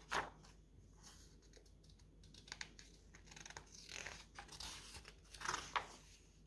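Paper rustling and crinkling as the large sheets of a cross-stitch pattern are handled and turned, in several short bursts, the loudest near the end.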